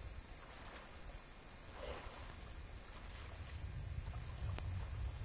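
Steady background hiss with a low rumble underneath, and a brief faint voice about two seconds in.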